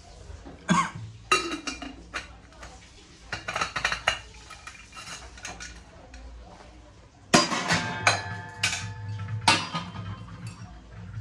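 Brass utensils being handled, knocking and clinking against each other. A louder clang about seven seconds in leaves a clear metallic ring, followed by a few more clanks.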